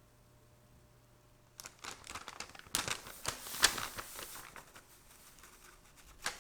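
Rustling and crinkling handling noise, starting about one and a half seconds in and dying away after about three seconds, then a single sharp click near the end.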